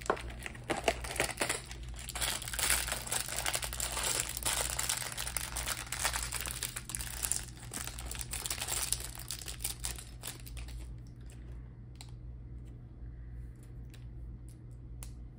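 Clear plastic LEGO parts bag crinkling as it is handled and opened, for about ten seconds. After that it stops, and a few sharp clicks of small plastic bricks follow.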